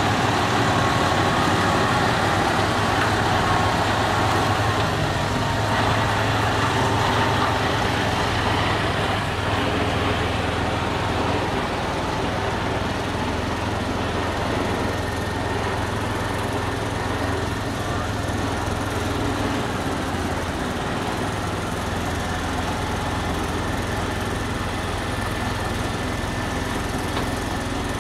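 Heavy tractor-trailer's diesel engine running steadily at crawling speed while hauling a heavy load, a low rumble that eases slightly after about ten seconds.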